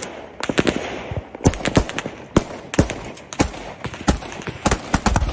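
Small-arms gunfire: many sharp shots, several a second at uneven spacing, some in quick clusters.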